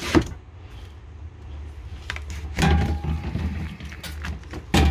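Plywood camera box and flexible dust hose being handled and pulled off the cyclone inlet, giving sharp wooden knocks and thuds: one at the start, one about halfway and one near the end, over a low steady hum.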